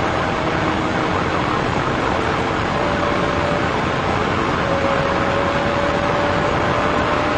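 Steady road and wind noise of a police cruiser travelling at about 122 mph during a pursuit, heard from inside the car, with a faint steady hum under it.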